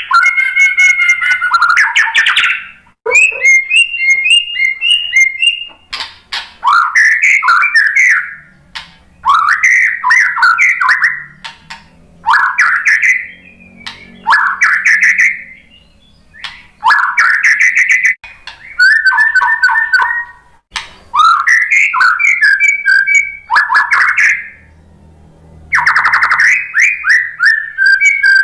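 White-rumped shama (murai batu) singing: a run of loud, varied song phrases of clear whistles, rising sweeps and quick chattering rattles, each a second or two long, with short pauses between. One longer pause falls a little before the end.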